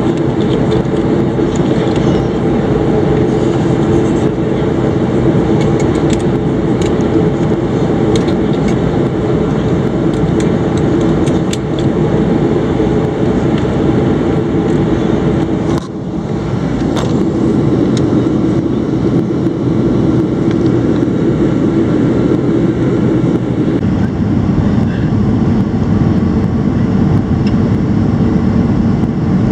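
Steady engine and airflow noise inside the cabin of a Boeing 737 airliner in flight, with a low hum and a brief drop in level about halfway through.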